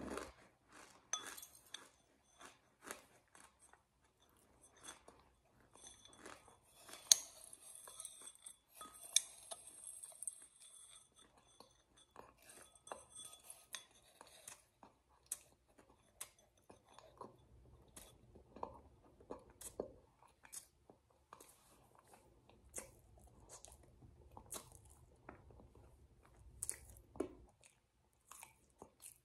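Close-up mouth sounds of chewing and crunching shaved ice syrup dessert, with lip smacking and many short clicks, the sharpest about seven seconds in.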